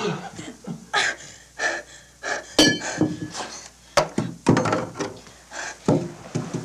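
Scuffle on a floor: irregular thumps and knocks as bodies hit and move on the floor, the sharpest about two and a half and four seconds in, with short vocal sounds between them.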